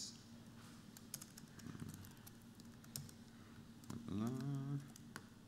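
Typing on a computer keyboard: faint, irregular key clicks, with a short voiced hesitation sound from a man about four seconds in.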